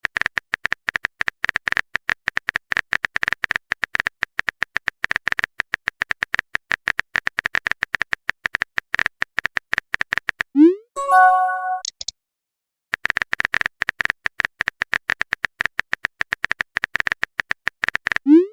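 Phone keyboard typing sound effect: rapid key clicks, broken about ten seconds in by a short rising swoosh and a brief chime of a few notes, as a message is sent. After a second of silence the typing clicks resume, ending with another swoosh.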